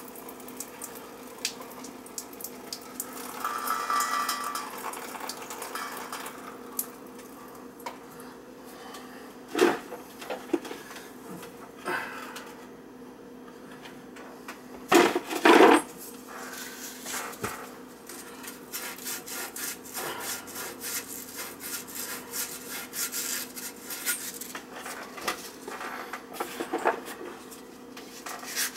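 Copper water pipe being handled against wooden joists: scattered metal clinks and knocks, a few louder knocks near the middle. In the last third, a quick run of short rhythmic scraping strokes as a saw starts cutting the pipe.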